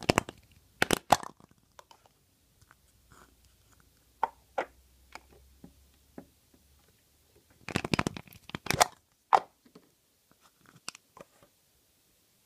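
Plastic surprise-egg shells being handled and pried open, and small plastic letter figures set down on a hard table: a run of sharp clicks and knocks, with two dense crackly clusters, one at the start and one about eight seconds in.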